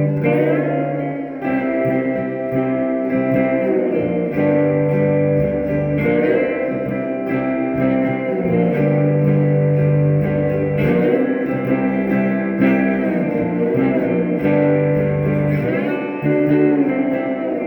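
Electric guitar played through a 1968 Alamo Paragon amplifier with its reverb turned all the way up: sustained notes and chords ringing out over repeated low bass notes.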